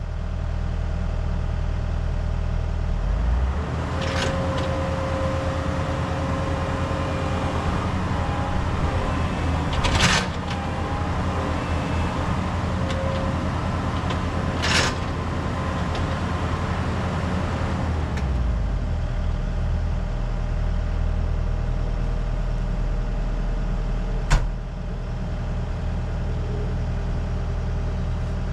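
Heavy-equipment diesel engine running steadily. From about 4 to 18 seconds in, its note changes and a steady whine joins it. Sharp metal clanks come at about 4, 10, 15 and 24 seconds in.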